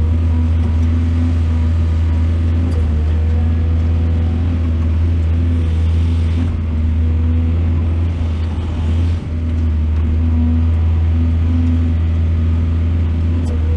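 Heavy excavator's diesel engine running steadily, a deep constant drone with a brief dip about nine seconds in.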